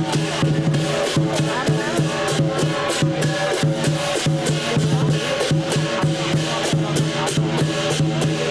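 Lion dance percussion band of drum, gongs and cymbals playing a fast, steady, driving beat.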